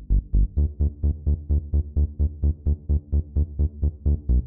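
Electronic dance music with a steady pulsing bass beat, about four pulses a second.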